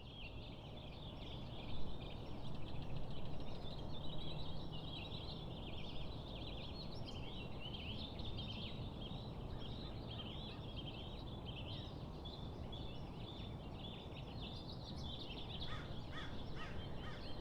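Many birds calling at once, a continuous overlapping chatter of short high chirps and peeps over a steady low background rumble.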